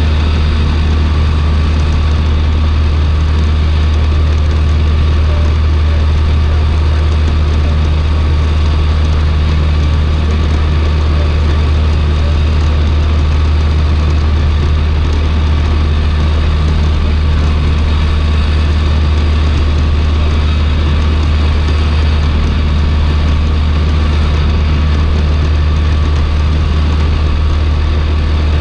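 Cessna 150's four-cylinder Continental O-200 engine and propeller droning steadily, heard inside the cabin, with the airplane held nose-high in slow flight at zero indicated airspeed just above the stall.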